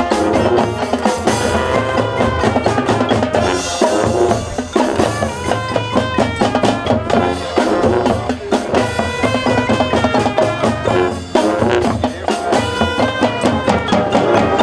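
Full high school marching band playing: brass and woodwinds over a drumline and bass drums keeping a steady beat. The music cuts off at the very end.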